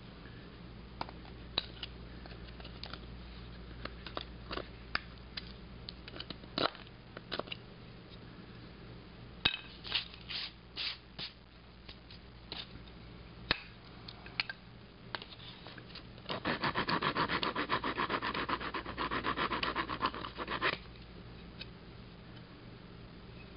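Swiss Army knife saw blade cutting a notch into a hard oak fireboard, the notch for a bow-drill fire. Scattered taps, scrapes and knocks of the board being handled and scraped come first, then about four seconds of rapid back-and-forth sawing strokes, the loudest part, a little before the end.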